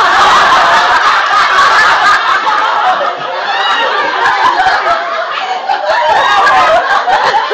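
Loud laughter from a group of people, many voices at once, starting suddenly and going on without a break.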